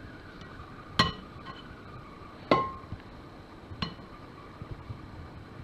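Metal kitchen tongs knocking against a glass mixing bowl while butter-soaked kunafa dough is lifted out: three sharp clinks about a second and a half apart, each with a brief glassy ring, the second ringing longest.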